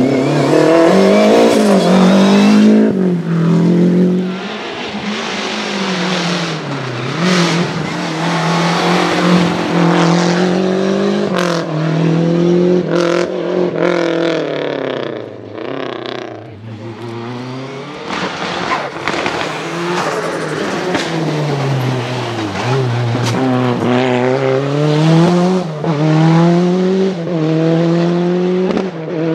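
Lancia Delta HF Integrale Group A rally cars' turbocharged four-cylinder engines revving hard, the pitch climbing and falling repeatedly as they accelerate and shift through the gears past the microphone, with sharp pops in between.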